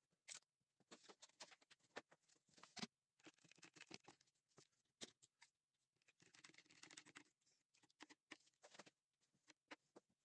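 Faint handling sounds: a sheet of paper rustling and crinkling as it is wrapped around a knife blade, with light clicks and knocks, and a one-handed bar clamp being squeezed shut onto it near the end.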